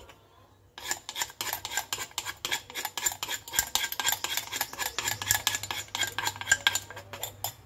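Wooden pestle pounding and a metal spoon scraping and turning a wet chili and mango mixture in a granite mortar: rapid, even knocks and metallic clinks that start about a second in.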